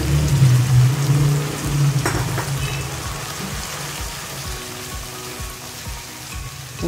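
Spiced onion-tomato masala frying in oil sizzles as chicken stock is poured in, with a silicone spatula stirring and scraping through it. The sizzle is loudest at first and dies down steadily.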